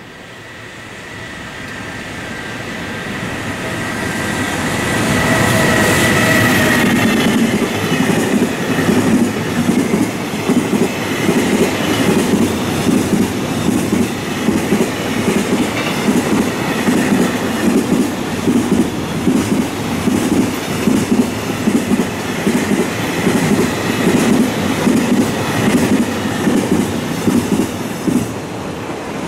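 Container freight train hauled by a JR Freight EF210 electric locomotive approaching and running past, growing louder over the first few seconds with a high whine. The steady rhythmic clickety-clack of the container wagons' wheels over the rail joints follows as the long train passes.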